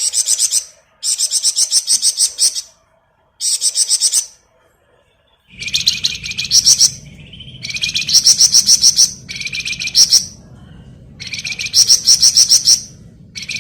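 Flamboyan songbird singing in the rapid, rattling 'ngebren' style: about seven bursts of fast, high-pitched trilled notes, each lasting up to a second and a half, with short pauses between them. A low steady hum comes in partway through.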